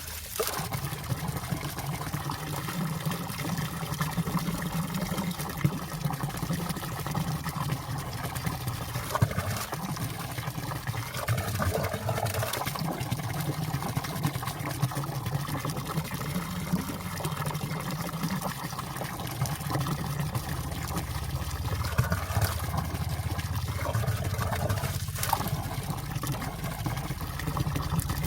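Valley stream water flowing steadily among ice.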